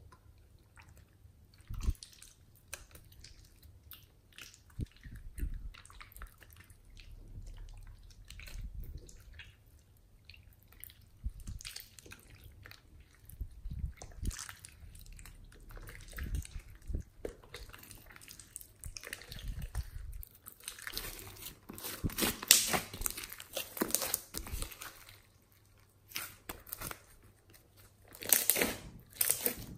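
Thick slime being kneaded, squeezed and stretched by hand in a glass dish: irregular wet squishing with sticky crackles and pops. The sounds come thickest and loudest about two-thirds of the way through and again near the end.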